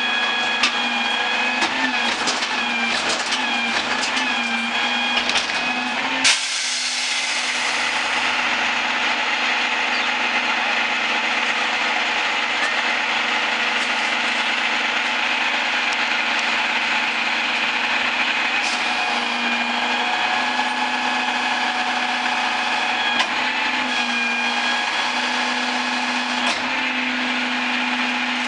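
Mack MRU garbage truck running with a steady mechanical whine. A few clicks and knocks come in the first six seconds, and about six seconds in the sound changes abruptly to a brighter, hissier drone that carries on steadily.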